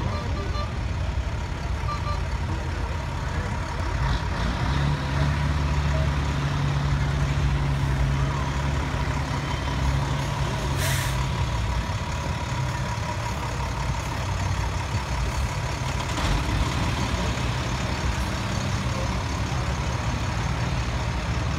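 A big fire-rescue truck's engine rumbles as it goes by slowly. The rumble is strongest for several seconds in the first half, and a short sharp hiss of air comes about eleven seconds in.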